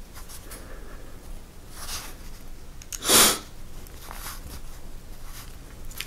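A man sniffling through congested sinuses: a faint sniff about two seconds in, then one short, sharp, loud sniff about a second later.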